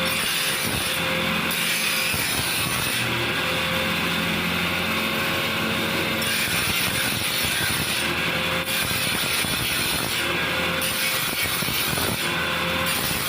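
Steady, loud mechanical workshop noise, with a higher hiss that cuts in and out every second or two.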